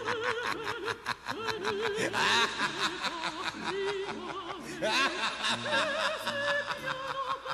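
Operatic singing with a wide, wobbling vibrato over an orchestral accompaniment with held low notes.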